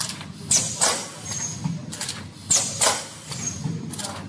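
Automatic spouted-pouch filling and capping machine running through its cycle: pairs of sharp hissing bursts about a third of a second apart, repeating every two seconds, over a steady low machine hum.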